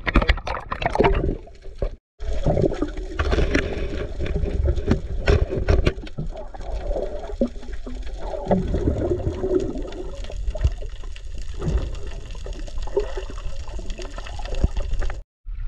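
Water sloshing and gurgling against a camera at the surface and underwater, a muffled low rumble with scattered clicks and bubbling. It cuts out briefly about two seconds in.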